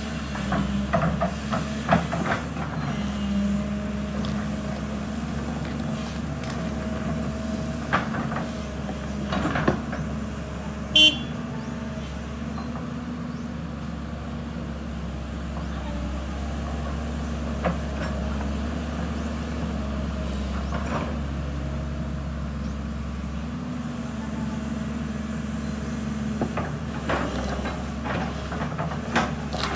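Diesel engine of a JCB crawler excavator running steadily under load as it digs soil, with occasional knocks and clanks from the bucket and arm. A brief loud high-pitched tone sounds about eleven seconds in.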